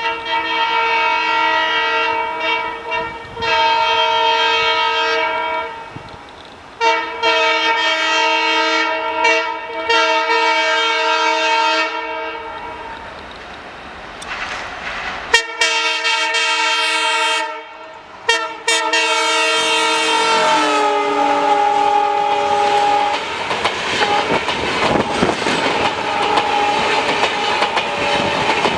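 WDM3D diesel locomotive's air horn sounded in several long, continuous blasts. About twenty seconds in, the horn's pitch drops as the locomotive passes. The coaches then rush by with wheels clacking over the rail joints.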